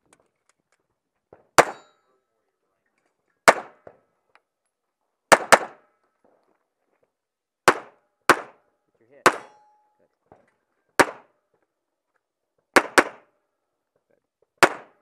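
Pistol shots, about eleven, fired singly one to two seconds apart with a couple of quick pairs, each a sharp crack with a short ring after it.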